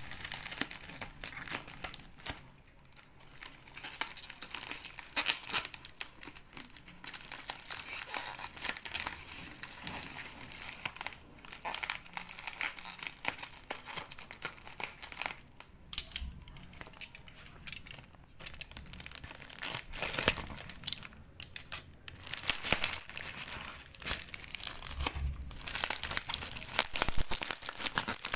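Clear plastic bubble wrap crinkling and rustling as it is handled and pulled open by hand: an irregular crackle with brief pauses and a few sharper knocks.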